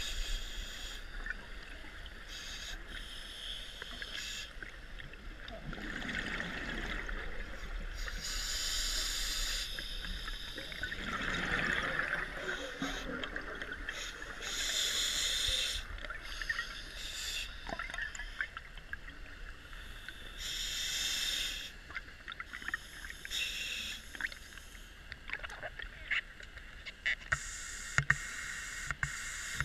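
Scuba diver breathing through a regulator underwater: a hissing rush every few seconds, with a heavier bubbling exhalation about twelve seconds in. Scattered faint clicks and crackles throughout.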